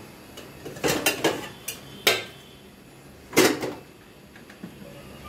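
Stainless steel bowls and plates clanking against each other as they are set down and stacked: a quick run of clanks about a second in, another at two seconds, and the loudest about three and a half seconds in.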